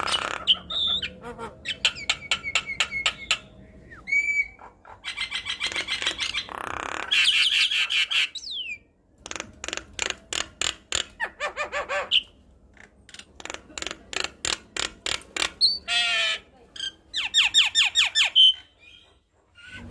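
Javan myna singing vigorously: rapid runs of clicking, rattling notes, several a second, broken by a few short whistled glides and brief pauses.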